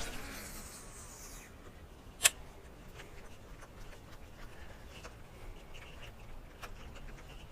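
Quiet background hiss with one sharp click a little over two seconds in and a few fainter ticks.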